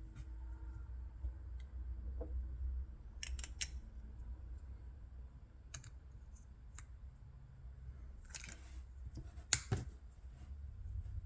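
Fragrance box and packaging being handled: scattered sharp clicks and a short rustle, with the loudest clicks near the end.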